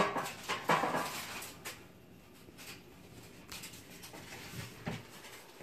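Kitchen handling noises: a quick run of clicks and rustles in the first second or two, then a low hush with a few soft knocks later on.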